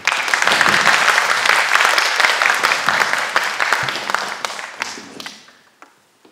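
Audience applauding: a dense patter of many hands clapping that starts suddenly, holds for about five seconds and then fades away.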